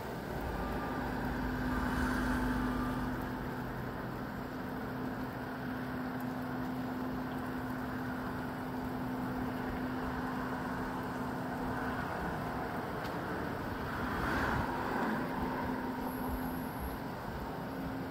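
Gusty wind and rain shower noise with a steady low engine hum from a nearby vehicle underneath. The noise swells twice, a few seconds in and again about three-quarters of the way through.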